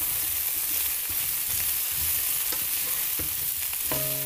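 Par-boiled cauliflower florets sizzling as they fry in hot oil in a kadai, with a few knocks of a spatula stirring them. Near the end a low steady hum or tone comes in.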